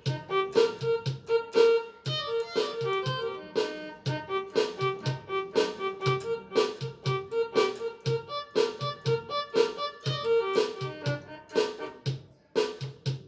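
Casio CTK-3500 digital keyboard playing one of its built-in rhythms: a steady drum pattern with pitched accompaniment notes, about two beats a second.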